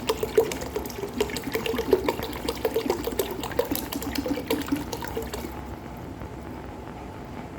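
Water being poured into a container to fill it, stopping about five and a half seconds in.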